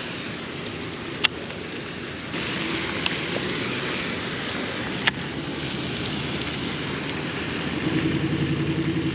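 A steady rushing noise with two sharp clicks, then, near the end, an engine comes in, running with an even pulsing beat.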